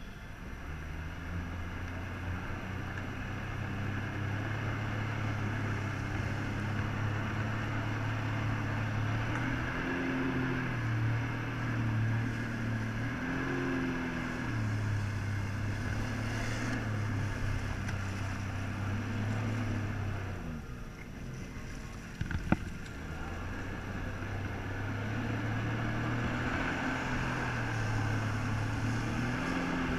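Jet ski engine running and revving up and down as the throttle drives water through the hose to a flyboard, over a steady hiss of spray and wind. The engine drops back briefly about two-thirds of the way through, with a single sharp click just after.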